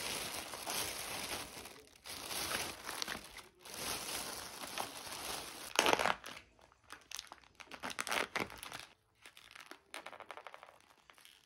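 Thin plastic carrier bag rustling and crinkling as takeout containers are pulled out of it, with a sharp crackle about six seconds in. After that, sparser crackles and clicks of plastic takeout lids being opened and handled.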